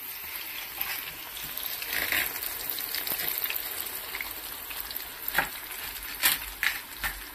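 Flour-coated zucchini rounds sizzling in hot oil in a frying pan: a steady hiss with crackles, and a few louder pops of spitting oil near the end.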